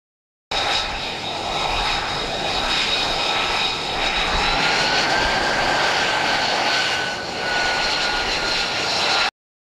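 F-35 Lightning II's Pratt & Whitney F135 turbofan engine running: a steady jet noise with a high whine whose pitch rises slightly midway. It starts suddenly about half a second in and cuts off abruptly near the end.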